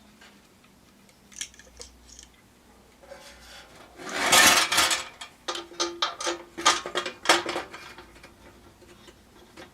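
Metal parts clinking and clattering as LED light pods and their brackets are fitted into a mower grille: a few light clicks, a loud rattling scrape about four seconds in, then a quick run of sharp metallic knocks.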